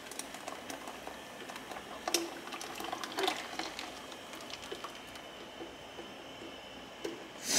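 Blended tomato broth pouring from a blender jar into a pot of water, splashing and gurgling. A brief louder sound comes near the end.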